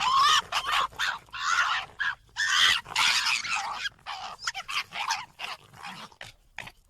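Red fox calls: a run of harsh, hoarse calls, several long loud ones in the first four seconds, then shorter, quicker ones, some with a rising-and-falling pitch.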